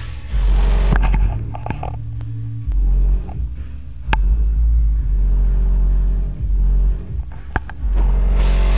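Deep bass notes of music played loud through a Logitech speaker system's subwoofer, each low note held a second or so and coming back after short gaps, with two sharp clicks, one around the middle and one near the end.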